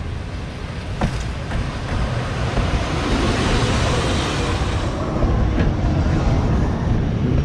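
Passenger train pulling into the station behind its locomotive: a steady low rumble of the locomotive and wheels on the rails, swelling louder from about three seconds in as the locomotive passes close by. A sharp click about a second in.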